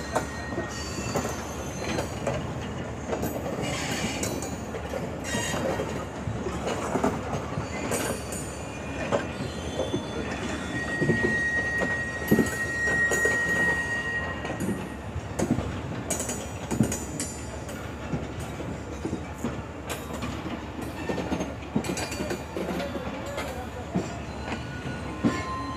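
Pakistan Railways passenger coaches rolling past, with their wheels clicking and knocking irregularly over the rail joints under a steady rumble. A single high, steady wheel squeal rings out from about eleven to fourteen seconds in.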